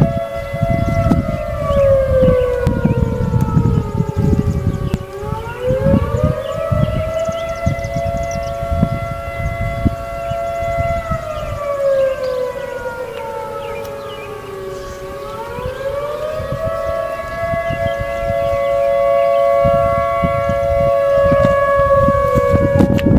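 Federal 2001-130 electromechanical tornado siren sounding a wail: its chord of tones falls slowly, climbs back up about five seconds in and again about fifteen seconds in, and holds steady between the glides.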